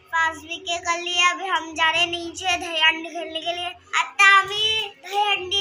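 A young girl singing a short tune in a few long, held phrases, with a brief break a little before the fourth second.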